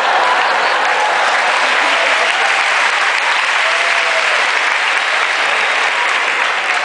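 Theatre audience applauding steadily, with a few voices calling out over the clapping.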